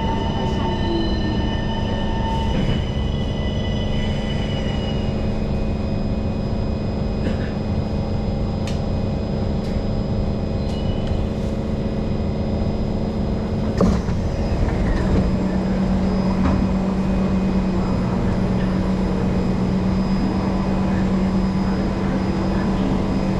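Cabin noise of an MRT subway train running in a tunnel, with rumble and steady motor whine tones. About 14 s in there is a clunk and a whine that falls in pitch as the train stops at the station. After that a steady low hum continues while it stands at the platform.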